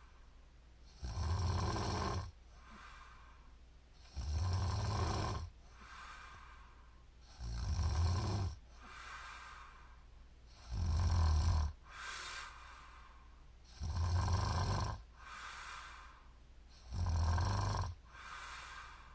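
A woman snoring in her sleep: six loud snores, about one every three seconds, each followed by a softer breath.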